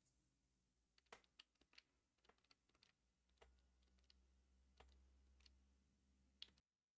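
Near silence: faint room hum with a dozen or so scattered faint clicks, cutting to dead silence near the end.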